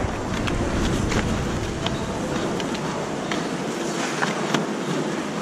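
Cardboard box lids being handled and stacked on a steel table, giving scattered light clicks and taps over a steady rushing background noise.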